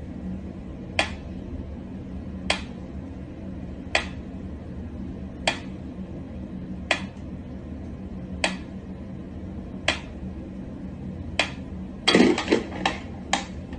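Mechanical metronome ticking slowly and evenly, about one sharp tick every second and a half, over a steady low hum. Near the end a quick run of louder wooden knocks and clicks comes from the toy peg box.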